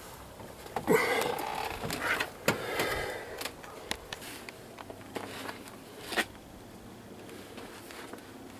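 Handling noises in a car's engine bay: a scattered series of sharp clicks and knocks with rustling between them, loudest about a second in, at about two and a half seconds, and at about six seconds.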